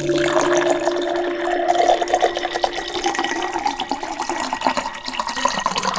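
Water from a homemade bottle fountain splashing and trickling steadily, a continuous patter of small drops.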